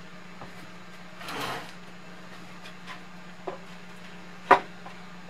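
Wooden tool trays full of hand tools being handled and stacked on a workbench. There is a short wooden scrape about a second in, a few light clicks of tools, and a sharp knock about four and a half seconds in, the loudest sound. A low steady hum runs underneath.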